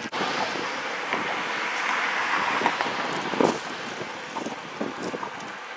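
A car passing on the road alongside, its tyre and engine noise swelling to a peak about two seconds in and then fading, with a sharp knock about three and a half seconds in.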